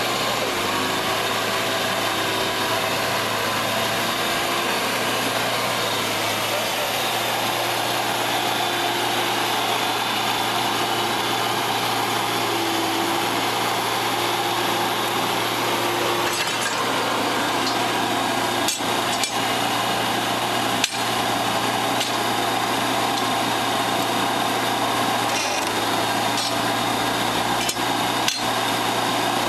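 Gallis 310B coal-mine roof bolter running, its dust-suction blower giving a loud, steady rushing noise over a low hum. In the second half a few sharp knocks are heard as the drill steel is handled at the drill head.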